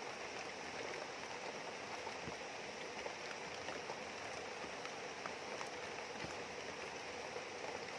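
Steady rain and a flowing river together making an even hiss of water.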